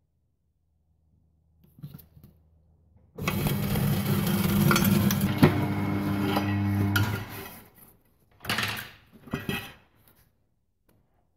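Electric tyre changing machine turning its turntable for about four seconds, starting a few seconds in, with a steady motor hum. The tyre bead scrapes and rubs as it is levered up over the rusty steel rim to come off, and there is one sharp knock about halfway through. Two short scuffing noises come near the end.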